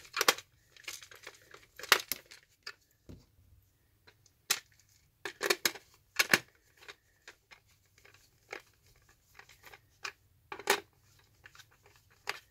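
Hand screwdriver driving small screws back into a plastic project box, with irregular sharp clicks, scrapes and knocks of the driver tip, screws and plastic case, several of them louder.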